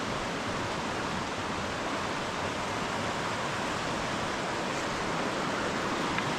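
Steady rush of a small river waterfall, water pouring over a ledge.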